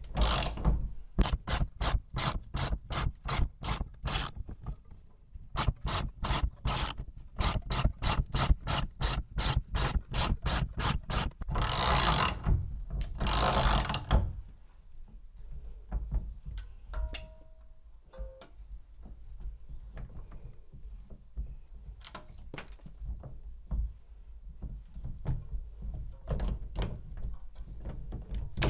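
Socket ratchet clicking in quick strokes as it tightens the nut of a cylinder puller on a Kwikset smart key deadbolt, drawing the lock core out. About twelve seconds in come two harsh grinding scrapes as the core tears free, followed by lighter clicks and knocks.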